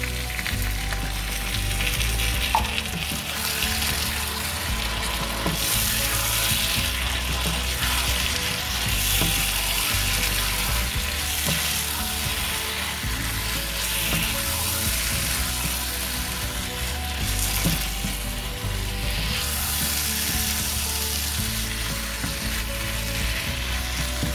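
Mushrooms in a ghee-fried masala paste sizzling in a pan after a splash of water, stirred with a wooden spatula. The sizzle is steady and swells every few seconds as the mix is turned.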